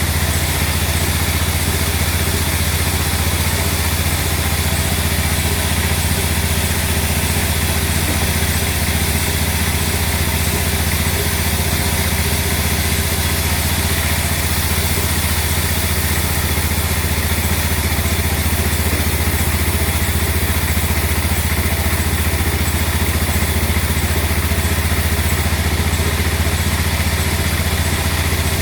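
An engine or motor running steadily at a constant speed, with no change in load.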